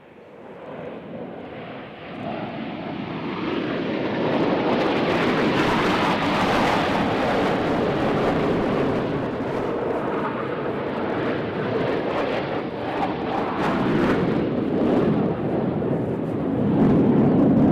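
Jet aircraft flying past the airfield, its engine noise rising over the first few seconds, staying loud, and peaking again near the end.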